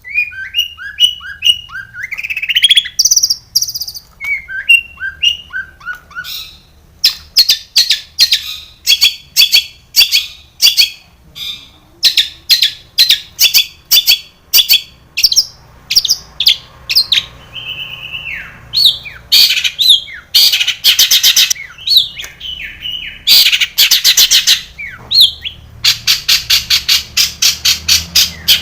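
Long-tailed shrike (cendet) singing a varied, mimicking song. It opens with clear whistled notes that slide up and down, then breaks into long runs of rapid harsh notes, several a second, in bursts with short gaps.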